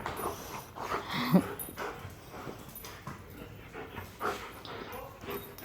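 Belgian Malinois giving a short yelp about a second in, amid scuffs and light thuds from her running about.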